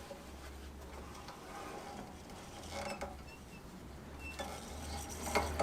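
Small metal parts and hand tools being handled: scattered light clicks and faint squeaks over a low hum, with a louder clatter near the end.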